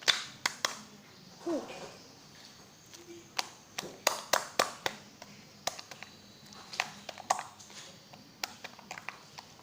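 Clear jelly slime being squeezed and pressed by hand, giving off irregular sharp clicks and pops, several a second at times, with a short vocal squeak about a second and a half in.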